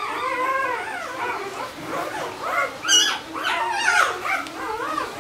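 A four-day-old Barbado da Terceira puppy crying with wavering, high-pitched squeals while it is handled, with a sharper, louder yelp about three seconds in.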